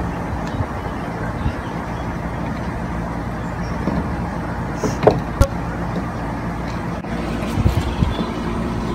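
A steady low mechanical hum, like a motor running, with a few short clicks about five seconds in and some soft low thumps near the end.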